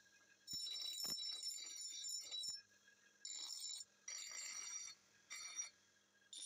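Bench grinder's abrasive wheel grinding a steel axe head in separate passes: a high-pitched ringing screech each time the metal is pressed to the wheel, a two-second pass first, then three short ones and another starting near the end, dropping away in between.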